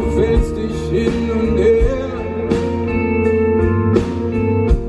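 Live pop-rock band playing a passage with no lyrics clearly sung: steel-string acoustic guitar and a held chord over a steady bass line, a few drum hits marking the beat, and some wavering voices in the mix.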